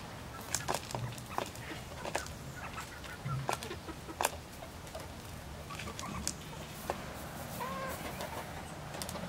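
Hens clucking quietly, with one short call about eight seconds in, among scattered sharp clicks and ticks.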